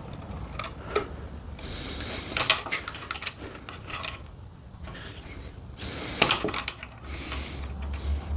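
Hand wire strippers closing on solid 12-gauge copper wire and pulling the insulation off, with a few sharp clicks and short scraping noises as the jaws bite and slide.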